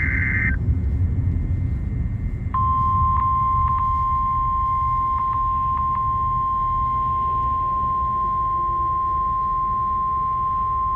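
Emergency alert broadcast: the harsh screech of the alert's digital header ends about half a second in, then about two seconds later a single steady high tone starts and holds. This is the National Weather Service alert tone that comes before a severe thunderstorm watch message. A low road rumble runs underneath.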